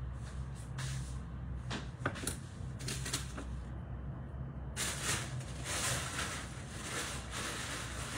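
Clicks and knocks of a Thermomix's plastic lid and measuring cup being handled, then a scraping, rustling stretch about five seconds in, over a steady low hum.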